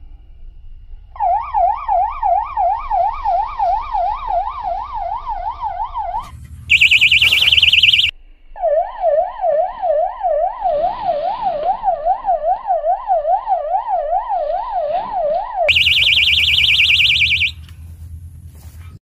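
Electronic fishing bite alarm going off, signalling a bite. It gives a fast warbling siren tone, about three sweeps a second, twice broken by a louder, higher shrill buzz.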